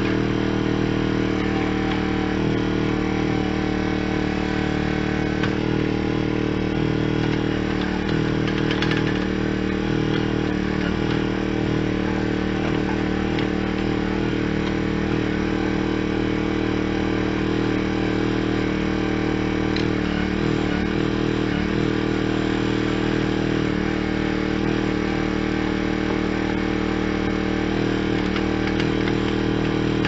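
Backhoe's engine running steadily as it powers the hydraulic boom and bucket digging into rocky dirt, with a brief clatter about nine seconds in.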